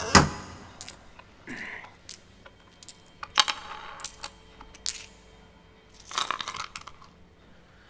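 A string of separate light clinks and clicks from small hard objects, about eight spread over several seconds, with a few short rustles between them.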